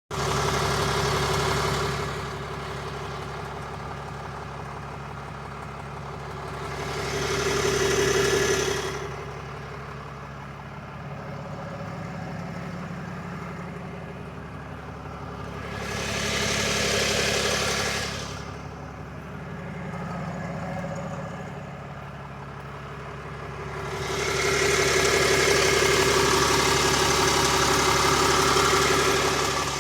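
2022 Ram 3500 pickup engine idling hot after two hours of driving, with a steady low hum and several swells of louder, hissier noise lasting a few seconds each: near the start, twice around the middle, and a longer one near the end. The owner can't tell whether the noise is normal.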